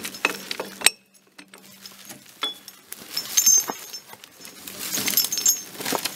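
Branches and brush rustling, with irregular twig cracks and sharp snaps as cut limbs are dragged and pushed through the undergrowth.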